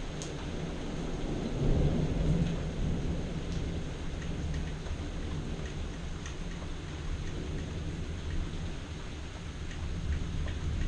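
Thunder rumbling low through steady rain, swelling to its loudest about two seconds in and then rolling on more quietly, with scattered raindrop ticks.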